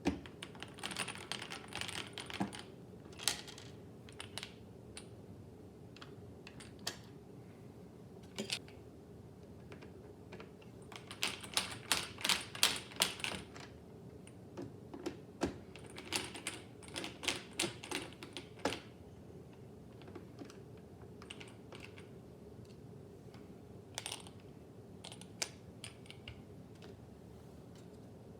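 Screws being unscrewed from a motherboard's CPU-cooler retention bracket, giving several bursts of rapid small clicks and taps.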